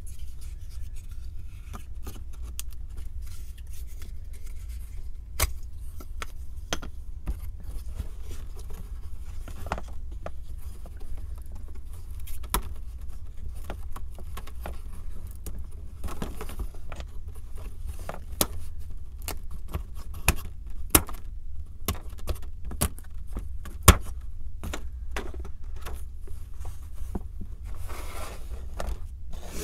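Small 3D-puzzle pieces handled and fitted together by hand: irregular light clicks and taps with some scraping and rubbing, one louder knock late on. A steady low hum runs underneath.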